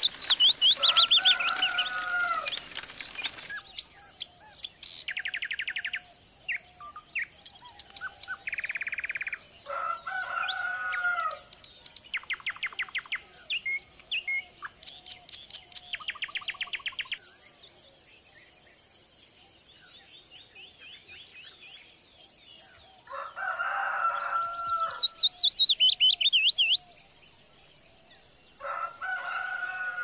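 Songbirds chirping, with fast chattering trills and high falling notes, and a rooster crowing several times.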